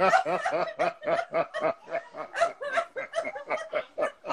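A man and a woman laughing together in a deliberate laughter-yoga exercise, a rapid, unbroken run of 'ha-ha' bursts.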